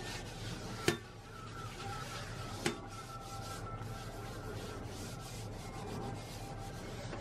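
Paper towel rubbing around the inside of a STAUB enamelled cast-iron oval cocotte, wiping rice oil over the interior after washing, a steady scratchy rub. Two sharp knocks come about a second in and again near three seconds in.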